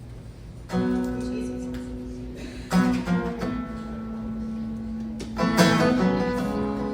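Acoustic guitar playing the intro of a song: strummed chords that ring out, starting about a second in, with new strokes near three seconds and again near five and a half seconds.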